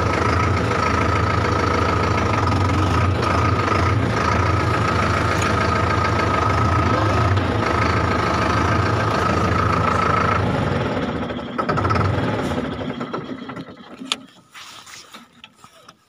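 Solis Yanmar 6024 tractor's diesel engine running steadily with a constant high whine, which stops about ten seconds in; the engine then stumbles, picks up briefly and dies away as it is shut off, leaving a few clicks from the controls near the end.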